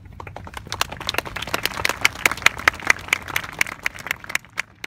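Small audience clapping, with some close, sharp individual claps over the rest. The applause builds over the first two seconds, then thins out and stops near the end.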